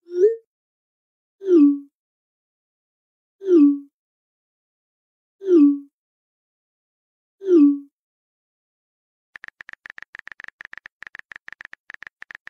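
Messaging-app sound effects: five short pop tones about two seconds apart, one for each chat bubble appearing. The first rises in pitch for a sent message, and the next four fall for received replies. After a pause near the end, a rapid run of keyboard typing clicks begins.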